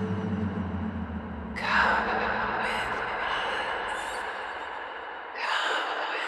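Horror-film intro sound design: a low drone fades out, then two sudden breathy swells of noise, like sharp gasps, come about four seconds apart, each trailing off slowly.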